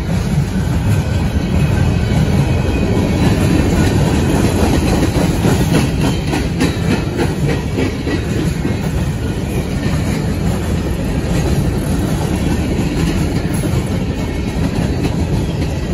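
Freight train cars, boxcars and covered steel coil cars, rolling slowly past: a steady low rumble of wheels on rail, with a run of clicks from the wheels over rail joints about six to seven seconds in.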